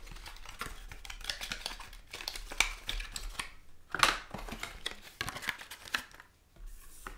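Cardboard and plastic retail packaging being handled and pried open by hand: an irregular run of scrapes, rustles and clicks, loudest about four seconds in.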